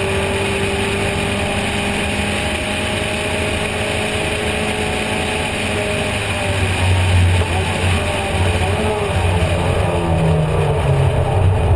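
Racing car's engine at high revs, heard from the open cockpit, holding a steady note down the straight. It gets louder about seven seconds in, and its pitch dips and rises near the end as the car reaches a corner.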